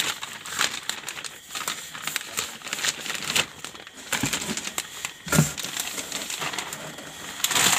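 Thin plastic packaging bag crinkling and rustling in irregular crackles as hands grip it and pull it off a computer monitor, loudest near the end.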